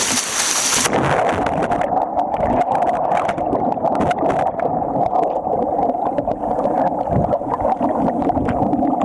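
Breaking surf and rushing whitewater around a sea kayak. About a second in the sound suddenly turns muffled, a dull churning of water with many small knocks, heard from underwater as the kayak capsizes.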